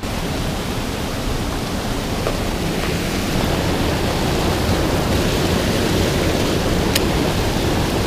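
Steady rush of river water pouring over a low rock ledge, with a single faint click about seven seconds in.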